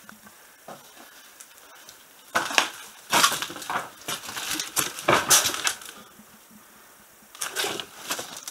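Footsteps crunching and scraping over loose rubble and broken debris, with clattering knocks. There are two spells: a long one from about two seconds in, and a shorter one near the end.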